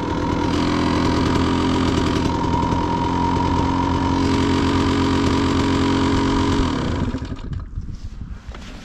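Dirt bike engine idling steadily, then switched off about seven seconds in.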